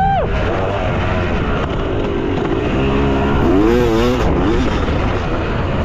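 Yamaha YZ250 two-stroke single-cylinder motocross bike being ridden, its engine pitch rising and falling with the throttle: a sharp rise and drop right at the start and another surge about three and a half seconds in.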